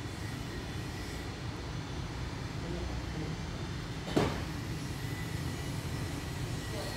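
Steady low background rumble with a faint high whine, and a single sharp knock about four seconds in.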